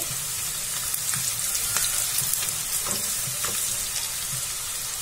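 Onions and Kashmiri red chilli powder sizzling in hot oil in a kadhai, a steady crackling hiss, with a few light scrapes as the mixture is stirred.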